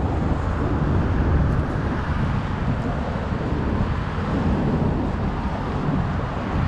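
Wind buffeting the camera's microphone: a steady, uneven low rumble over a wash of outdoor noise.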